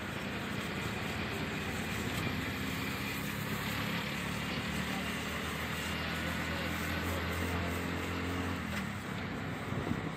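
Road traffic: a vehicle's engine runs close by with a low, steady hum over the general noise of passing cars, fading near the end.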